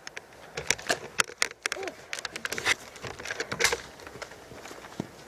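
Close handling and movement noise: a run of irregular sharp clicks and rustles, with a brief faint voice sound about two seconds in.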